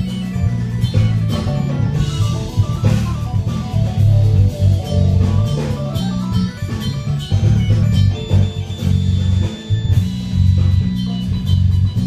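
Live jazz-fusion band playing an instrumental passage: electric bass lines heaviest in the low end, with drum kit and piano.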